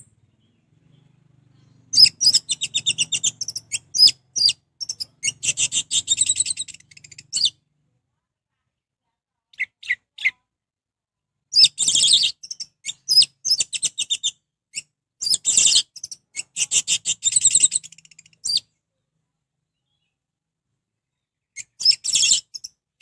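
Orange-headed thrush in full song: loud bursts of rapid, high, varied phrases, separated by pauses of a few seconds, with a couple of short single notes between the first two bursts.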